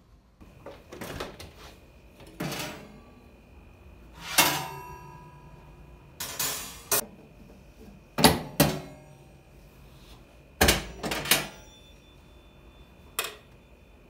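A series of separate knocks and clinks from household objects being handled and set down, about ten in all, a few with a short ringing tail.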